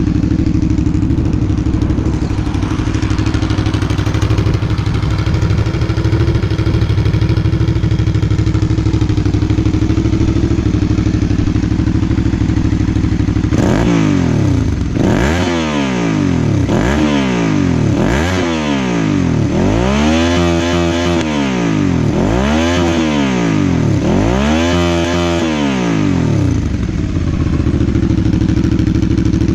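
Suzuki SV650's V-twin engine through a Roadsitalia Projsix exhaust with the baffle fitted, idling steadily. About halfway through, the throttle is blipped about half a dozen times in a row, each rev rising and falling, before the engine settles back to idle near the end.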